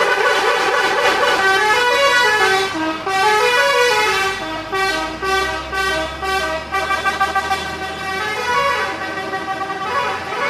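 Indonesian bus 'telolet' musical air horn playing a tune of stepped notes, several horn tones sounding together. A low steady hum joins about four seconds in and stops near the end.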